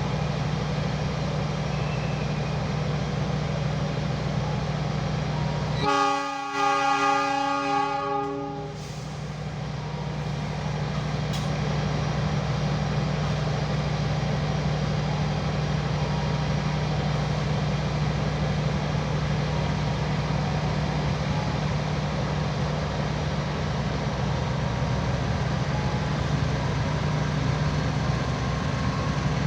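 Train horn sounding a short blast and then a longer one about six seconds in, over the steady low rumble of a train running.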